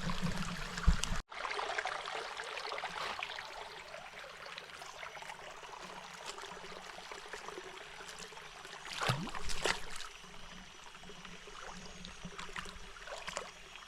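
Water running and trickling in a jungle stream pool, with a louder stretch about nine seconds in.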